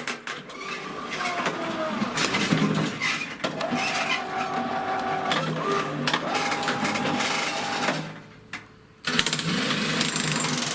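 Homemade electric power shovel's jackhammer attachment working: a fast, rattling mechanical hammering with a motor whine. It drops away around eight seconds in and starts again abruptly about a second later.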